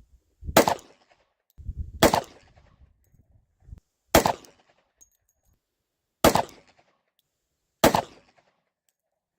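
Five pistol shots from a Glock G29 Gen 4, a 10mm Auto subcompact, fired on its stock barrel about one and a half to two seconds apart, each a sharp crack with a short ringing tail.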